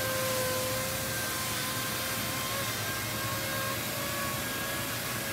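Robotic sanding cell running on a primed cabinet door: the robot's orbital sanding heads and the dust-extraction vacuum make a steady whine at one held pitch over an even hiss.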